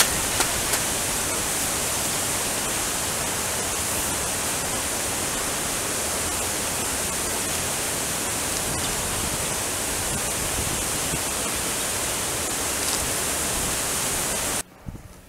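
Water pouring over a low river dam, a steady rushing roar that cuts off suddenly near the end.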